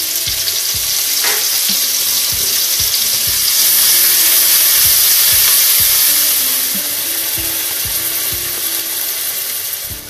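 Diced red onion sizzling in hot oil with cumin seeds in a nonstick frying pan as it is stirred, a steady hiss with scattered small crackles. The sizzle grows louder about a third of the way in and eases back a little near the end.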